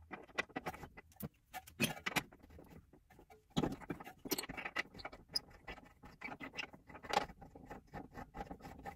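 Irregular metallic clicks, taps and scrapes of a wrench and socket on the Torx bolt of a VW Beetle's front brake caliper bracket as the bolt is worked loose and turned out by hand.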